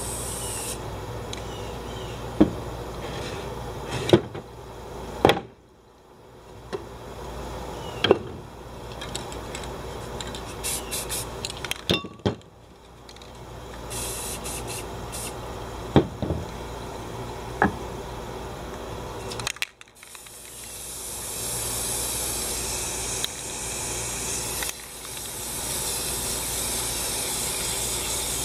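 Aerosol spray paint can hissing as white paint is sprayed onto a board, first in short bursts and then in longer, nearly continuous sprays in the second half. Several sharp knocks of cans and objects being handled or set down come through in between.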